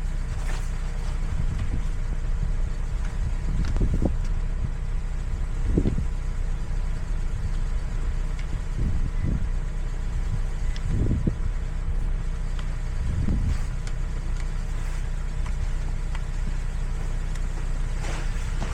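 A car engine running steadily with a low rumble, with a few dull thumps at irregular intervals.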